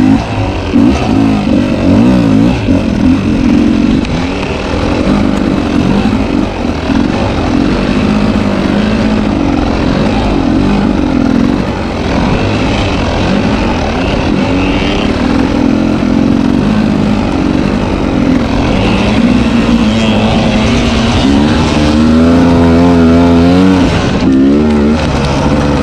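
Two-stroke dirt bike engine revving up and down repeatedly as it is ridden over off-road trail, the pitch wavering rapidly through throttle changes, most busily near the end.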